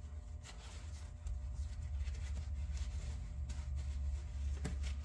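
Steady low hum of room tone with a few faint rustles and soft clicks, the handling noise of a shop towel wiping oil from around an engine's oil filter mount.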